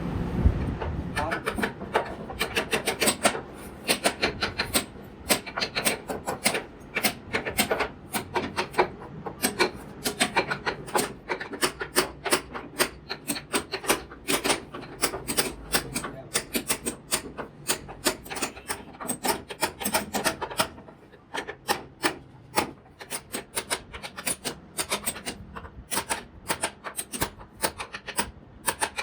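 A hand tool scraping across wood in quick repeated strokes, a few each second, as the wood is shaped by hand.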